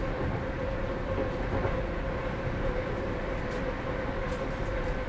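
Inside a British Rail Class 319 electric multiple unit running between stations: a steady rumble of wheels on rail under a constant hum, with a few faint ticks near the end.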